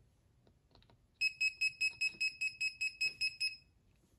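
Kaiweets KM201 multimeter's non-contact voltage detector beeping rapidly: about five or six high-pitched beeps a second, starting about a second in and stopping after some two and a half seconds. It is signalling that it senses AC voltage.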